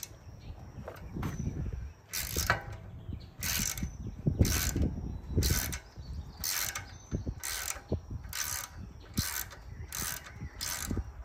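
Hand ratchet with a Torx bit backing out engine cover screws: a burst of pawl clicks on each back-swing, repeating about once a second and coming quicker in the second half.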